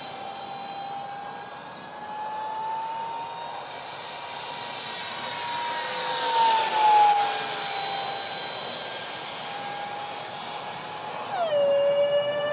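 Twin electric ducted fans of a radio-controlled Freewing Su-35 model jet whining in flight. The whine rises slightly in pitch, then falls about six to seven seconds in as the jet passes close, and drops sharply in pitch and grows louder near the end.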